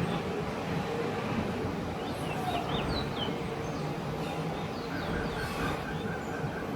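A few faint, short, high chirps from a small songbird, over a steady low background rumble.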